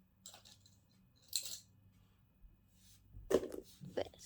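Faint, scattered clicks and rustles of small plastic fidget toys being handled, with a louder rustle about a second and a half in and more handling noise near the end.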